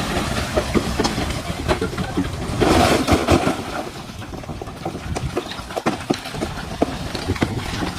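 DH17C3 crawler bulldozer working, with its engine running under many irregular sharp clanks and knocks from the tracks and the stones it pushes. A rougher scraping rumble swells about three seconds in.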